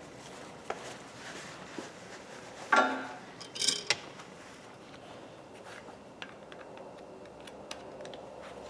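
Metal tools or parts being handled: one clank with a short metallic ring about three seconds in, then a quick rattle of clinks a second later, with a few faint ticks around them.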